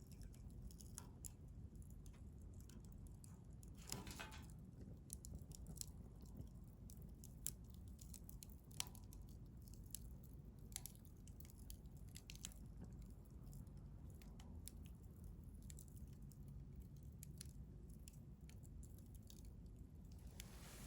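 Wood fire crackling faintly, with irregular pops and snaps and a longer run of crackling about four seconds in.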